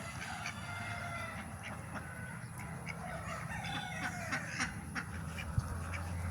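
A flock of free-range country chickens clucking, with many short, scattered calls and clicks.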